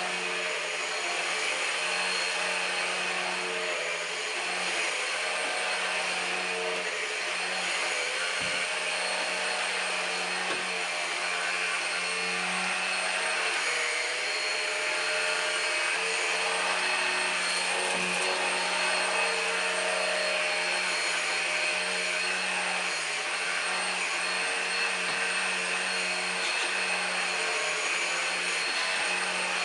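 Numatic Henry Quick cordless stick vacuum running steadily while vacuuming, a constant motor hum with a high whine, with a few faint knocks along the way.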